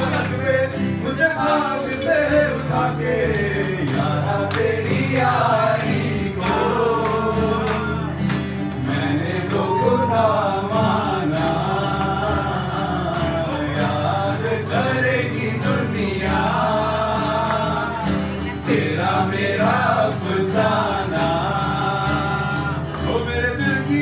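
Live male singing with two acoustic guitars, sung into microphones.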